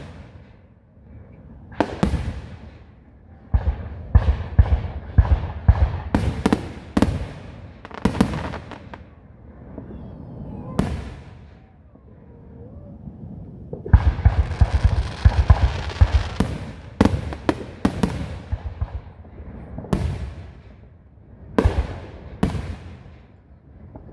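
Aerial fireworks bursting in the sky: many sharp bangs, some in quick clusters, with a dense stretch of crackling shells in the middle.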